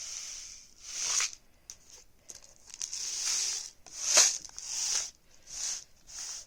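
Homemade rain stick, a paper towel tube with rice inside and ends capped with tin foil and wax paper, being tipped back and forth: the rice pours through the tube in a series of hissing, pattering swells, each rising and falling over about half a second to a second, with a few light ticks between them.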